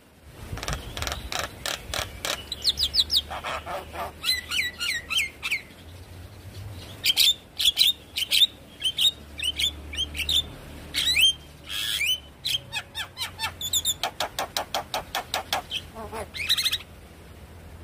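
Javan myna singing a busy, chattering song: fast runs of clicking rattles mixed with many short whistles that bend up and down in pitch.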